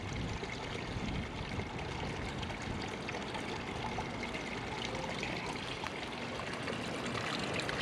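A steady, even rushing noise with no distinct events, like running water or wind.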